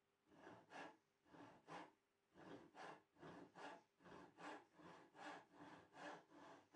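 Hand saw cutting wood in steady back-and-forth strokes, about two a second.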